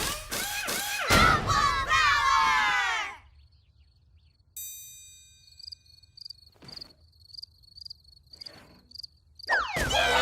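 Cartoon soundtrack: loud music with falling pitch sweeps cuts off about three seconds in. A bright ding follows, then faint high ticking about two a second. Near the end a loud burst of music and cheering starts.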